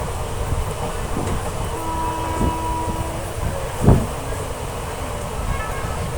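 Passenger train running along the track, heard from on board: a steady low rumble, with one loud knock about four seconds in.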